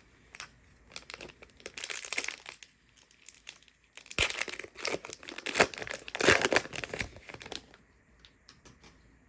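Foil wrapper of a Panini Prizm fat pack of trading cards crinkling and being torn open, in irregular bursts, loudest from about four to nearly eight seconds in, then a few faint ticks.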